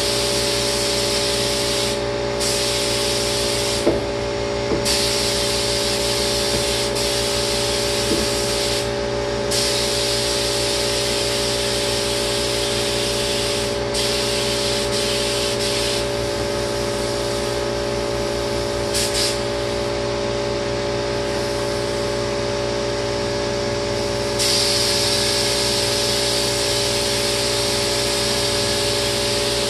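Spray gun hissing as lacquer is sprayed, breaking off for a moment several times as the trigger is let go, over the steady hum of a running motor.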